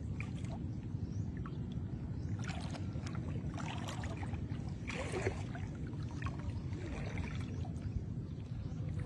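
Legs wading through shallow seawater, the water sloshing and splashing irregularly with the steps, over a steady low rumble.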